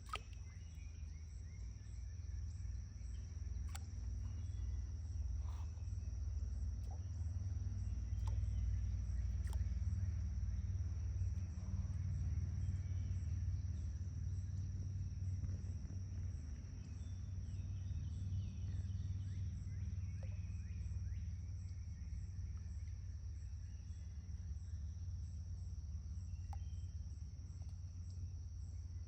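A steady, unbroken high-pitched chorus of insects, typical of crickets, with a low rumble underneath and a few faint ticks.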